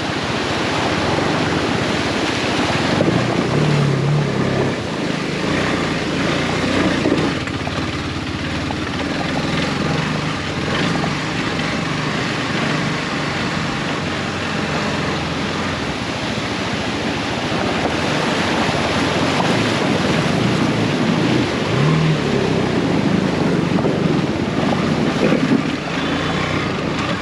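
Motorcycles crossing a river, their engines running under the steady rush of flowing water, with wind noise on the microphone.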